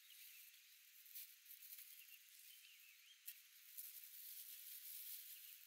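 Near silence: faint outdoor ambience with a high, even hiss and a few soft clicks. A brief, faint chirp comes about halfway through.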